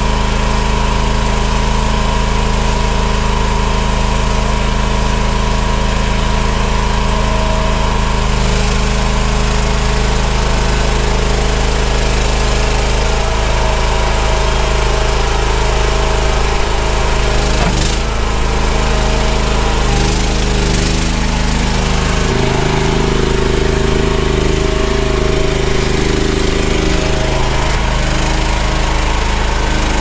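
The engine of an EGN EG360 mini skid steer running steadily, its pitch shifting slightly about eight seconds in and again a little past twenty seconds.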